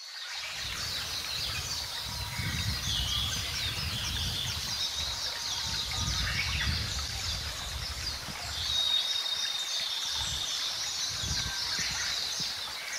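Birds chirping over the steady rush of a shallow, rocky stream, with low rumbles that come and go.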